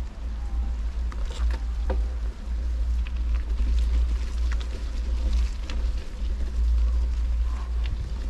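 Wind buffeting the microphone, a low rumble that swells and dips, with scattered light clicks and rattles.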